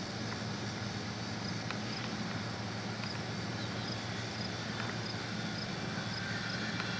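Steady background hiss with a low hum, and a faint high tick repeating regularly a little under twice a second.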